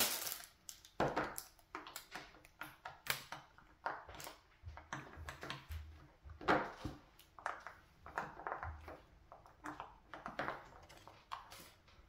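Bubbles of a silicone push-pop fidget toy being pressed in one after another, giving a string of soft, irregular pops and clicks, a few a second.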